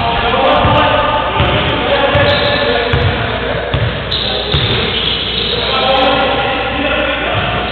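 A basketball bouncing on the court floor in repeated dribbles, with music and voices in the hall behind.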